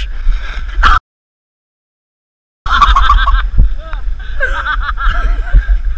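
Wind buffeting the camera microphone, with young people shouting in the distance. About a second in the audio drops out to dead silence for roughly a second and a half, then the wind and shouting return.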